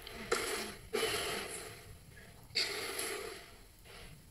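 A man breathing at a podium microphone between phrases of a speech: three short, noisy breaths with quiet between them.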